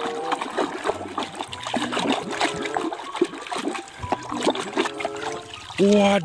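Water splashing and sloshing in a tub as a hand scrubs a plastic toy under the surface, in many irregular small splashes. A short, louder pitched sound cuts in near the end.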